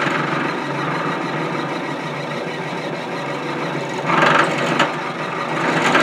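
Bench drill press running steadily, its small bit boring into a wooden disc about four seconds in and again near the end.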